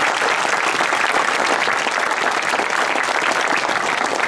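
A crowd of people applauding, with steady clapping throughout.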